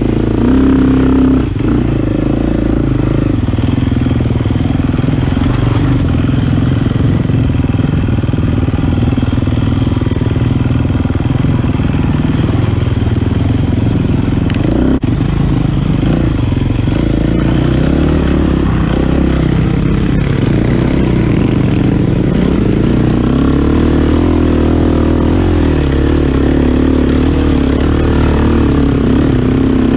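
A dirt bike engine runs while riding a trail, its pitch rising and falling with the throttle.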